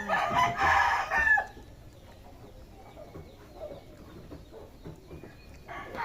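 A rooster crowing once, for about a second and a half, as a loud pitched call.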